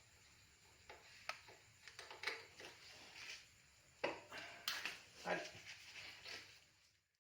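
Scattered light clicks and knocks, a few close together, with the sound cutting off shortly before the end.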